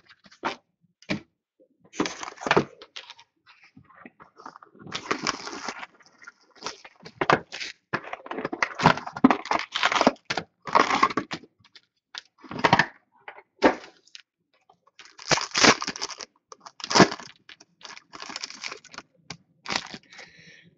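A cardboard hockey-card box being opened and its wrapped card packs handled and torn open. Irregular crinkling, tearing and crackling comes in long runs about a third of the way in and again about three quarters of the way through, with scattered sharp clicks in between.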